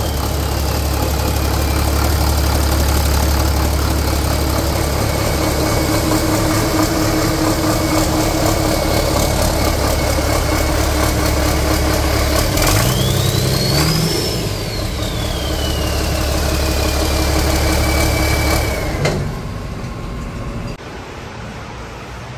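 2002 Cummins ISL inline-six diesel engine idling with a high turbocharger whine winding down. About thirteen seconds in it is revved once, the turbo whine climbing and then falling back as it settles to idle. The engine sound cuts off suddenly a few seconds before the end.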